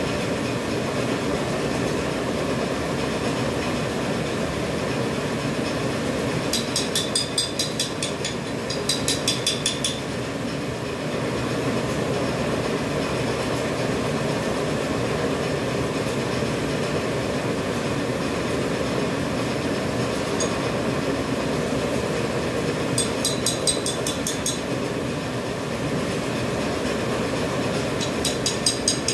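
Disposable dental mask production machine running with a steady mechanical hum. Four times, a rapid run of high ticks, about five or six a second, sounds over the hum for a second or two.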